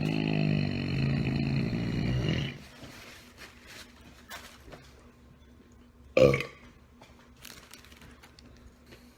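A man's long, deep burp that ends about two and a half seconds in, followed about six seconds in by a short, sharp burp that is louder still.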